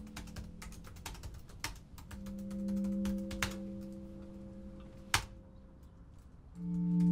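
Typing on a laptop keyboard: a quick, irregular run of key clicks, with one sharper click about five seconds in. Sustained low music tones sit underneath, and a loud held chord comes in near the end.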